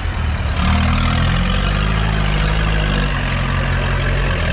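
Off-road jeep's engine running at low revs as the jeep crawls past, with a little change in engine speed about half a second in. A thin high whine drifts slowly down in pitch above it.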